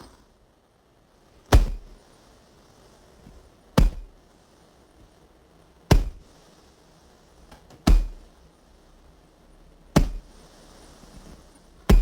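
Six sharp thuds, evenly spaced about two seconds apart, each with a brief low rumbling tail.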